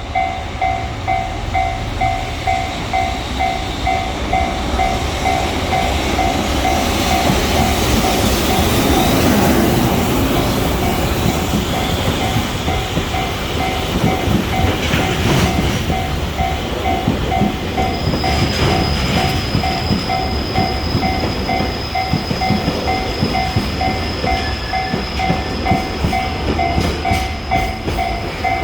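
Japanese level-crossing warning bell ringing on and on in a pulsing two-tone beat, about two a second, while a container freight train's wagons rumble and clack over the crossing. A thin high steady whine joins about two-thirds of the way through.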